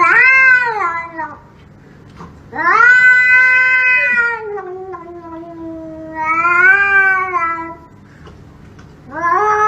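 A domestic cat yowling in long, drawn-out calls that rise and fall in pitch: a short one ending about a second in, then after a pause a long wavering yowl lasting several seconds, and another beginning near the end.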